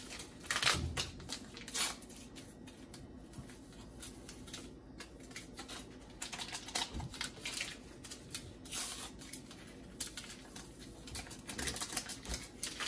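Sazón seasoning packets crinkling and rustling as they are torn open and shaken out over pork, an irregular run of small crackles and clicks, busier about half a second in, around nine seconds and near the end.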